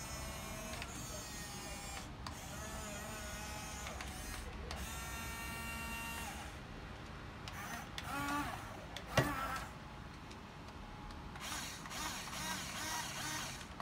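Huina 1550 RC excavator's small electric gear motors whirring as the boom, arm and bucket move, the pitch shifting as each motion starts and stops, with one sharp click about two-thirds of the way through.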